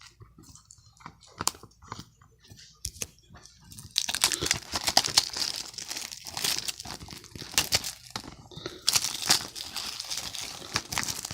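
Plastic wrap on a Blu-ray case crinkling as it is handled and pulled off. A few light clicks and taps come first; the crinkling turns dense and steady about four seconds in, pausing briefly around the middle.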